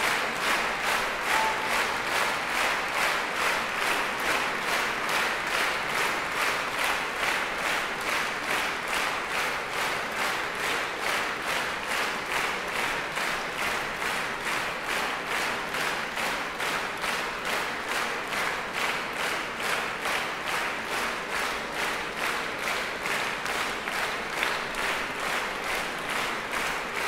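Concert-hall audience applauding in unison, a steady rhythmic clap a little over twice a second.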